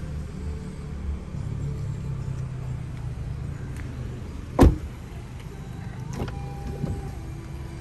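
A Honda Civic sedan's rear door slammed shut with one loud thud about halfway through, followed by lighter clicks of the front door latch being opened, over a steady low hum.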